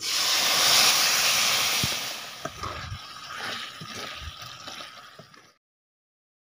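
Curry paste poured into a hot kadhai over soya chunks, sizzling loudly at first and then dying down over a few seconds, with a few knocks of the spatula as it is stirred. The sound cuts off abruptly about a second before the end.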